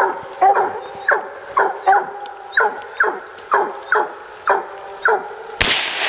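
Coonhounds barking treed at a raccoon, short falling barks about two a second, the steady tree bark that tells the hunter the game is up the tree. Near the end the barking stops and a single gunshot goes off.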